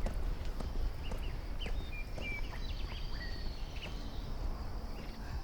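Outdoor rural ambience: scattered short knocks, like hoof clops or steps, with a few brief high chirps over a steady high hiss.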